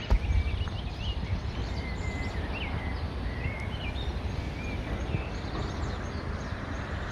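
Many small birds chirping and twittering in short, repeated calls over a steady low rumble, with a single sharp knock at the very start.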